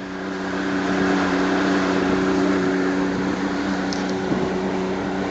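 Pontoon boat under way: its motor running at a steady pitch over a rush of wind and water, growing a little louder in the first second.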